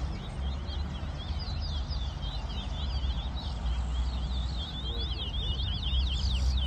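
Caged bullfinch (the Trinidad name for the chestnut-bellied seed finch) singing a fast, unbroken run of high, quick up-and-down whistled notes, growing denser and louder near the end, over a steady low rumble.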